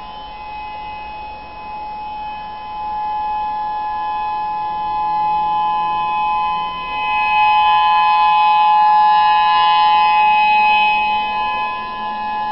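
Whelen 3016 electronic outdoor warning siren sounding a steady two-note tone during its monthly test, holding pitch without wailing. It grows louder about halfway through and dips near the end.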